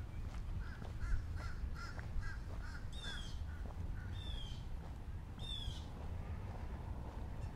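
Birds calling: a quick run of repeated short notes, then three short calls that each slide down in pitch, about a second apart, over a steady low rumble.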